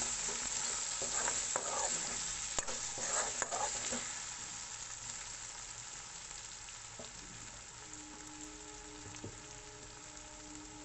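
Potatoes frying in oil in a pan with a steady sizzle. A spatula stirs and scrapes through them for the first few seconds. After that the sizzle carries on quieter and undisturbed.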